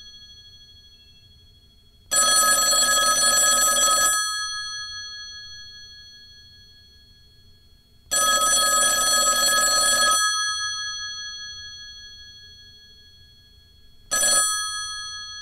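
Telephone bell ringing: two rings of about two seconds each, six seconds apart, then a short ring near the end. After each ring the bell's tone fades away slowly.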